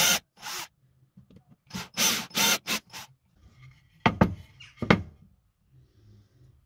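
Cordless drill boring into a wooden batten in a series of short bursts, followed by a few sharp knocks as the drill and the wood are handled.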